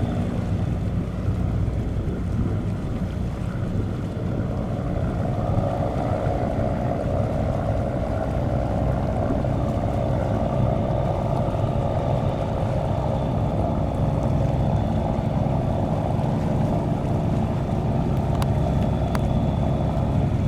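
Fast passenger ferry's engines running steadily, with water wash and wind on the microphone.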